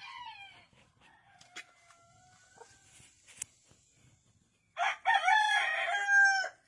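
Roosters crowing. The tail of one crow fades out in the first half-second, and a fainter, drawn-out crow follows. About five seconds in comes a loud full crow that ends on a long held note.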